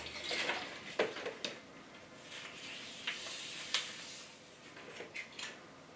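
Small plastic items clicking and knocking with a rustle as they are handled in a plastic storage bin, about half a dozen sharp clicks spread through the stretch.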